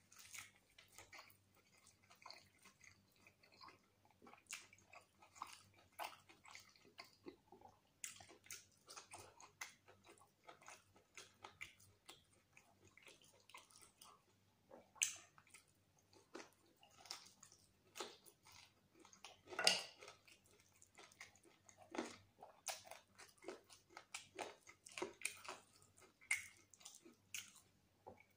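Close-miked chewing and biting as a man eats mutton biryani and mutton curry by hand: irregular wet mouth sounds and small clicks, tearing meat off the bone, with one louder one about twenty seconds in.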